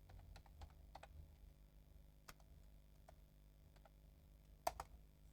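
Faint, scattered computer keyboard clicks, keys typed slowly, with a louder pair of clicks near the end.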